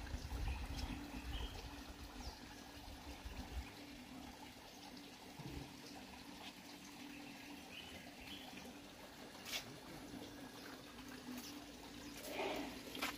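Water trickling steadily, with faint bird chirps, a steady low hum and a couple of sharp clicks, one about two-thirds through and one near the end.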